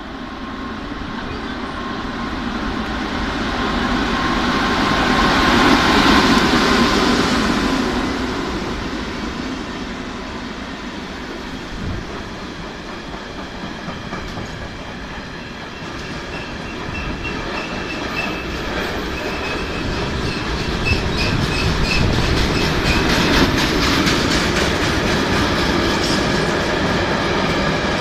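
A long freight train of flat and container wagons rolling past, loudest about six seconds in. Its wheels clatter over the rail joints, with a thin high wheel squeal in the second half.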